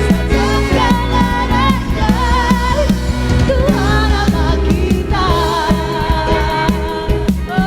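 Live worship band playing a song, with singing over a steady drum beat and bass.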